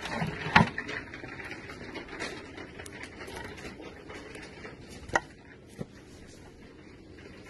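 Round wooden cutting boards knocking together as one is taken off a shelf and handled: one sharp knock about half a second in and two lighter knocks a little after five seconds, over faint rustling and shop background noise.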